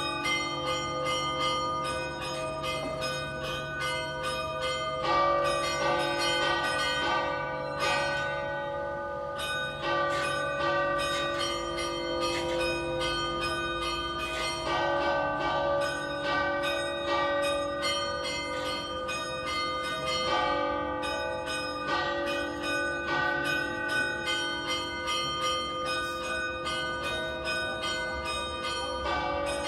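Festive ringing of three church bells in a civic bell tower: an 1878 Pasquale Mazzola great bell in D-flat and two smaller 2015 De Poli bells, not tuned to a scale. Rapid, overlapping strokes ring on over a low, held hum.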